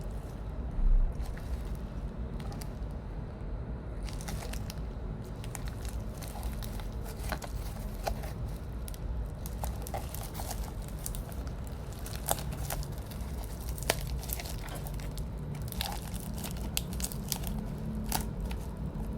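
Packaging being handled and torn open by hand: irregular crinkling and crackling with a few sharp clicks, becoming busy after a few seconds, over a low steady hum. A dull thump about a second in.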